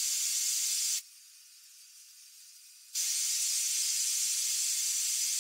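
Gas torch flame hissing steadily while heating a steel hammerhead through its eye for a flame temper. The hiss cuts out abruptly for about two seconds partway through, then comes back at the same level.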